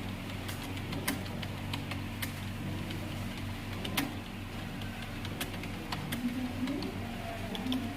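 Keyboard keys clicking at an irregular pace, a few sharp clicks a second with fainter taps between, over a steady low hum.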